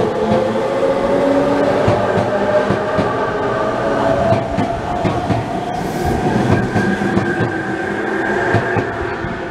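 Tobu 100 series Spacia limited-express electric train pulling out of the station, its motors whining in several tones that rise slowly as it gathers speed, over the clack of wheels on the rail joints. The sound eases a little near the end as the cars draw away.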